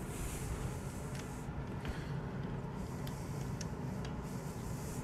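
Steady low workshop hum with a few faint metallic clicks as a small aluminium part is handled at a lathe's four-jaw chuck.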